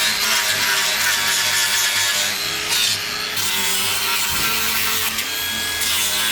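Power sander running steadily against a carved wooden pumpkin, with a brief dip about three seconds in.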